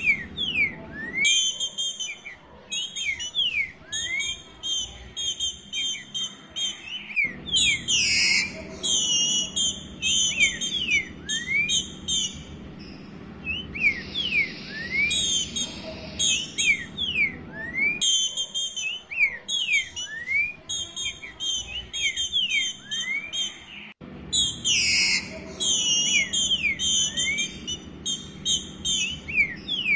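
Female green-winged saltator (trinca-ferro) calling to solicit mating: short rising whistles over and over, mixed with quick runs of high chirping notes.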